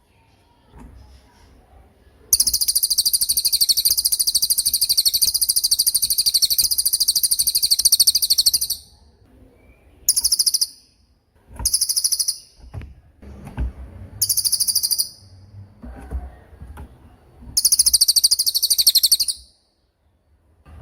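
A cililin singing its rapid-fire 'tembakan' song: very high, fast trilled bursts, first one long trill of about six seconds, then four shorter trills a second or two apart.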